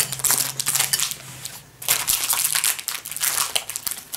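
Metallised plastic wrapper of a packaged cocoa cake crinkling and crackling as it is squeezed and handled. The crinkling comes in two spells, with a short lull a little before halfway through.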